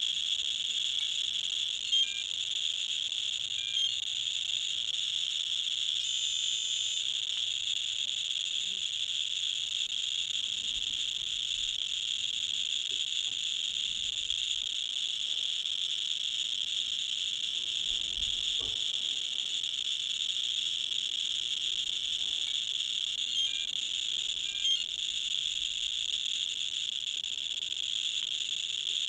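Radiacode scintillation detectors' audio clickers ticking so fast in a radiation field that the clicks merge into a steady, high-pitched crackling buzz.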